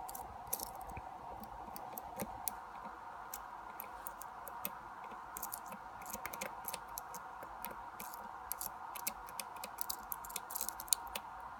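Lock picks working inside a padlock's keyway: faint, scattered small metallic clicks and ticks as the pins are raked and set under tension, over a faint steady hum.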